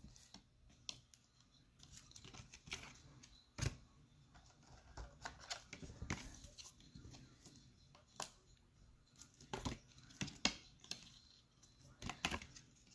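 Football trading card packs being torn open and the cards handled: faint tearing and crinkling of the pack wrapper, with scattered small clicks and rustles.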